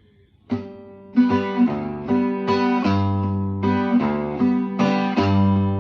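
1950s Martín Macías guitar, freshly strung with new Macías strings, played from about half a second in: a steady norteño rhythm of bass notes and strums, about two to three strokes a second.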